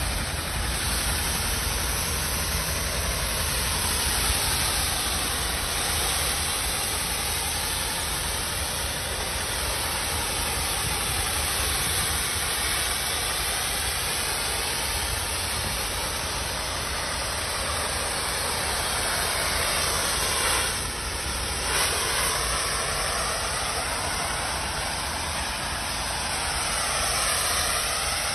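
DOFF superheated steam cleaner's lance jetting steam onto a brick wall's stone coping: a steady loud hiss that shifts slowly in tone as the nozzle sweeps, over a steady low rumble. The hiss dips briefly about three-quarters of the way through.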